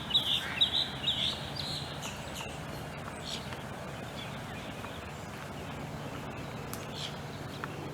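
A bird calling in a quick run of loud, high chirps, about four or five a second, that stops about two seconds in; after that only a few scattered single chirps from birds over a steady outdoor background.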